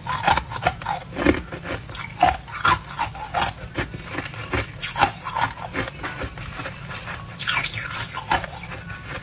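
Frozen yellow ice pieces being crunched and chewed in the mouth: a dense, irregular run of sharp cracks and crunches.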